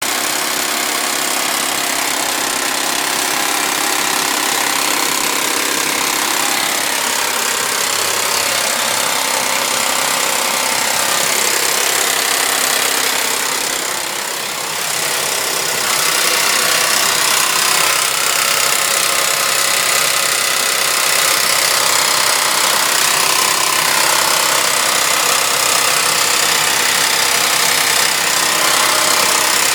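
Suzuki Vitara V6 engine running with a horrible noise that the owner puts down to the timing chain. The sound dips briefly about halfway through, then carries on slightly louder.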